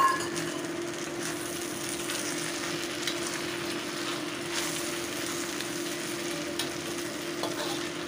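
Flat noodles, vegetables and shredded chicken sizzling in a wok while a metal spatula stirs and scrapes through them, with a sharp metallic clink right at the start and a steady low hum underneath.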